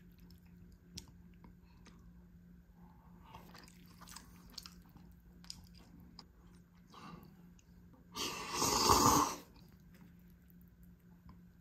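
Chopsticks clicking faintly against a bowl of soupy instant noodles, then one loud slurp of the noodles, about a second long, some eight seconds in.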